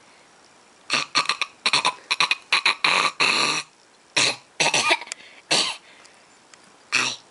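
A person's voice making a run of short non-word vocal noises in quick groups, with pauses between them and one last noise near the end.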